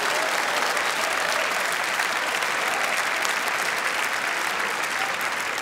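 Audience applauding steadily with dense clapping, easing off slightly near the end.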